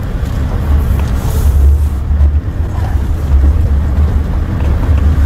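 Vehicle driving uphill on an unpaved forest road: a loud, steady low rumble of engine and tyres on the dirt surface.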